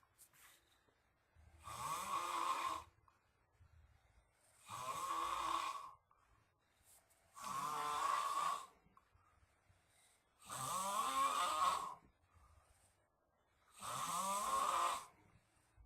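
A person snoring in deep sleep. Five loud snores come about three seconds apart, each lasting a little over a second with a rising rattle, and it is quiet between them.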